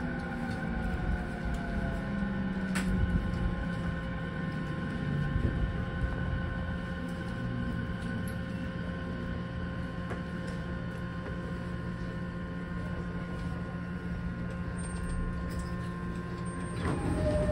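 209-500 series electric train motor car braking to a halt, its inverter whine falling in pitch until about three seconds in, ending with a sharp click. The stopped car then gives a steady hum of several even tones. Near the end the sound swells as the doors begin to open.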